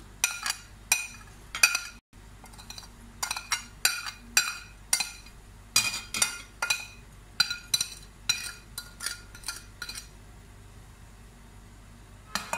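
Metal spoon clinking against a glass bowl, again and again at an uneven pace, as spices are spooned into it. Each strike rings briefly. The clinking stops about ten seconds in, with one more clink near the end.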